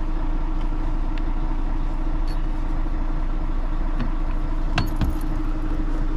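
Fire-fighting truck's engine running steadily with a constant hum. A few light clicks cut through it, the sharpest about five seconds in.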